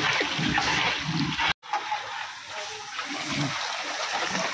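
Water splashing in a large cooking pot, with a steady rushing hiss; the sound breaks off for an instant about one and a half seconds in, then carries on a little quieter.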